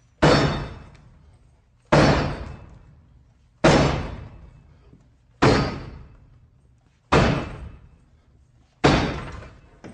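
A 38-pound steel battering ram striking a locked door, six heavy blows about every second and three quarters, each ringing out and fading.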